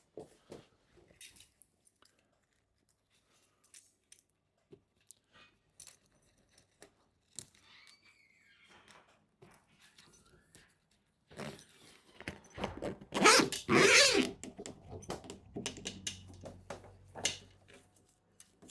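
Mostly quiet handling with a few faint clicks, then, about halfway through, several seconds of rustling and crinkling as the waterproof mattress cover is handled.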